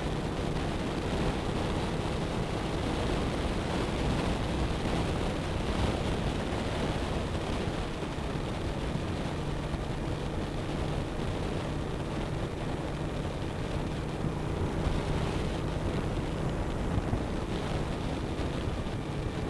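Wind noise buffeting the camera microphone on a 2007 Suzuki SV1000S at highway speed, with the bike's V-twin engine running steadily underneath at a constant speed.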